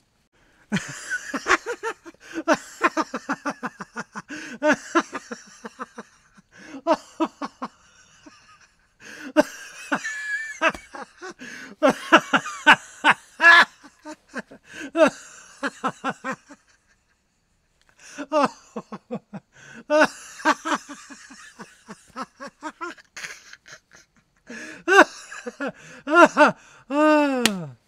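Laughter: a voice breaking out in rapid strings of short pitched bursts, in several long fits separated by moments of silence. Near the end there is a smooth falling pitched glide.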